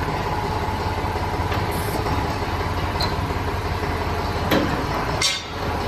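Tractor diesel engine running steadily while its hydraulic reversible mouldboard plough is turned over. There is a sharp knock about four and a half seconds in and another short knock near the end.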